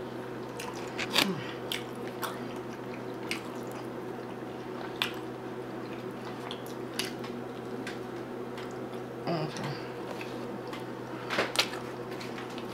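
A person chewing a mouthful of hamburger close to the microphone: scattered soft, wet mouth clicks and smacks, with a cluster near the end, over a steady background hum.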